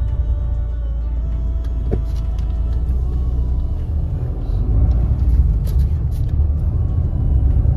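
Mahindra XUV700 diesel SUV heard from inside the cabin: a steady low engine and road rumble, with a single short click about two seconds in.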